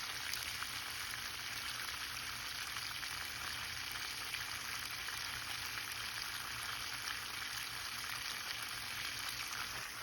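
Water rushing steadily out of a water heater's drain valve during a flush, a continuous hiss carrying sediment-laden dirty water out of the tank.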